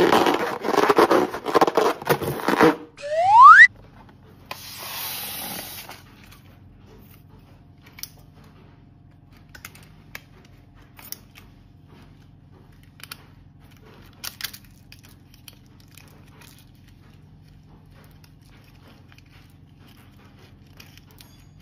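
A loud, busy stretch of sound, then a short rising whistle-like glide about three seconds in, the loudest moment. A brief noisy patch follows, then faint scattered clicks of small plastic charms being handled over a dish of slime.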